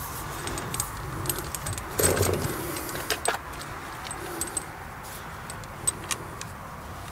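A garden hose and its metal fittings being handled and tucked behind wall pipes: scattered light metallic clicks and clinks with rustling of the hose, and a soft knock about two seconds in.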